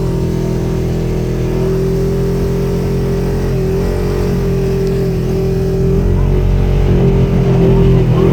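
ATV engine running steadily under way, its pitch wavering slightly with small throttle changes and getting a little louder near the end.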